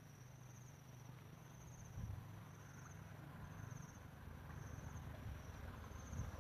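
Faint insect chirping: a high, pulsing trill repeated about once a second, over a low rumble.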